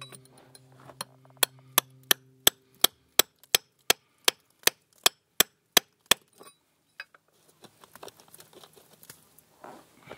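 A hand tool striking and chipping at the mortar joint between foundation stones: a rapid, even run of sharp strikes, about three a second, for about five seconds, then softer, irregular scraping and tapping.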